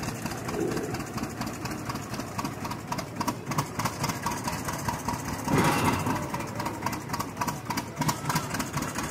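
Vintage John Deere two-cylinder tractor engine idling with a rapid, uneven putt under light load, with a louder stretch about halfway through.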